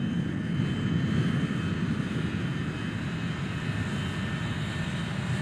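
Jet airliner engine noise: a steady low rumble with a faint high whine above it.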